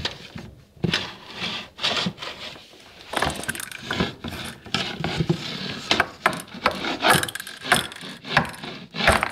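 Irregular clicks, knocks and scraping of things against a wooden floor and furniture as a ball is worked out from under a low piece of furniture.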